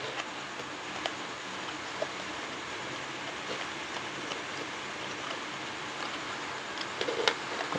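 Steady background hiss with a few faint, light clicks and taps from hands handling a small cardboard box.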